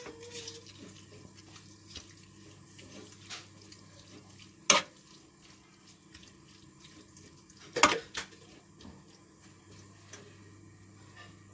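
Cuttlefish slices and spices frying in olive oil in a pan, a faint crackle with small ticks, and two sharp knocks of a utensil against the pan, about five and eight seconds in.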